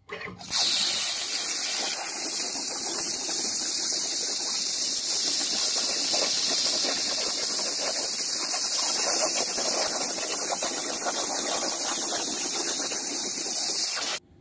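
Hypertherm Powermax 85 plasma torch arc burning on 1-inch steel plate: a loud, steady hiss that starts about half a second in after a short blip and cuts off suddenly near the end.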